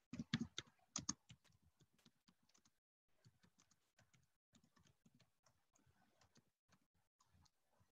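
Typing on a computer keyboard: a quick run of key clicks, louder in the first second or so, then fainter scattered taps.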